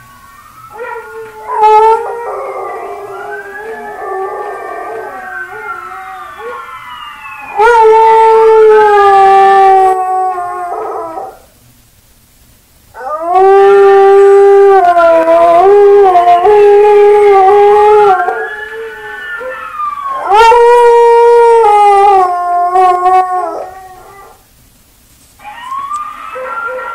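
A dog howling loudly: long, drawn-out howls that hold a steady pitch with short dips, in several bouts of a few seconds each separated by brief pauses.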